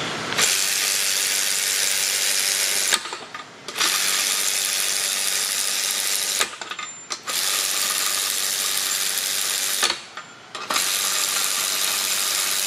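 Makita RW01 12V cordless ratchet spinning nuts down onto bolts, one after another. There are four steady runs of about three seconds each with short pauses between them, and the first three end in a click.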